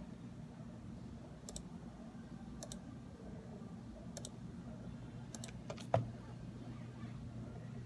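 Scattered single clicks from a Dell computer keyboard and mouse, roughly a second apart, the loudest about six seconds in, over a steady low hum.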